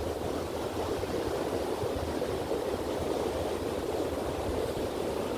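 Steady rushing wash of ocean surf breaking on the beach, with a low rumble underneath.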